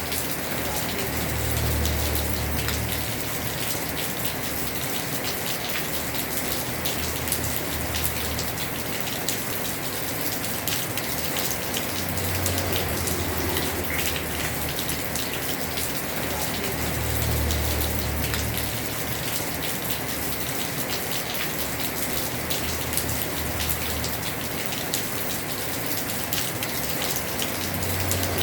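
Heavy rain pattering steadily on a house roof, with dense drop impacts, and a low rumble swelling in and out every few seconds.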